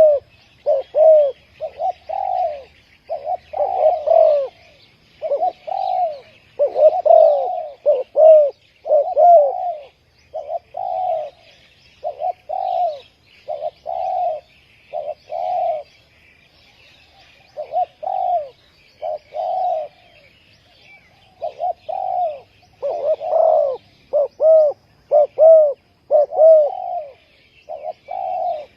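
Spotted doves cooing over and over in short repeated phrases, with a brief pause about halfway through. Faint high chirps of small birds sound behind them.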